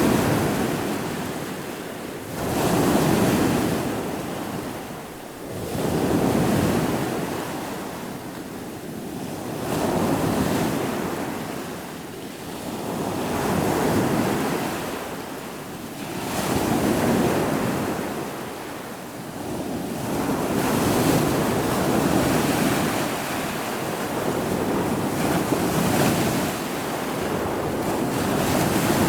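Ocean surf: waves breaking and washing in, each surge swelling and fading every three to four seconds.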